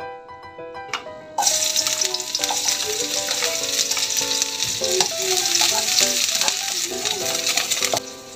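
Chopped red onions sizzling in hot oil in a wok. The sizzle starts suddenly about a second and a half in, as the onions hit the oil, stays loud and even, and cuts off shortly before the end.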